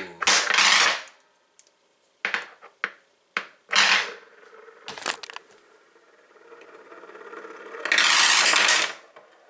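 Metal padlocks spinning and clattering on a hard surface: a burst of clatter at the start, several short sharp knocks, then a longer loud rattle about eight seconds in.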